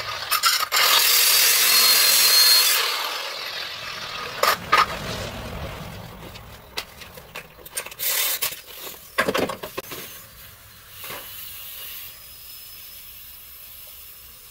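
Angle grinder cutting through an old sway bar link, loud for about the first three seconds and then stopping, followed by scattered metallic knocks and clanks as the parts are handled.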